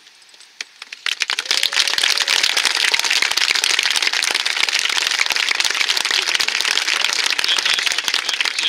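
Applause from a large crowd of cadets and spectators, a dense crackle of many hands clapping. It starts about a second in and dies away near the end.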